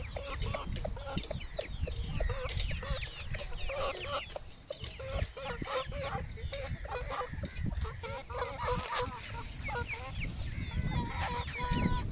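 Aseel chickens clucking in short repeated notes, with many quick high chirps over them.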